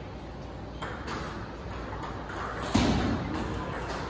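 Quiet room tone in a table-tennis hall between rallies, with a single brief dull thump about three seconds in.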